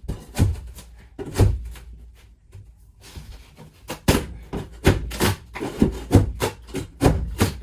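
Pry bar levering and knocking under a glued-down wooden floor board: irregular knocks and scraping of metal on wood, coming faster in the second half as the board resists.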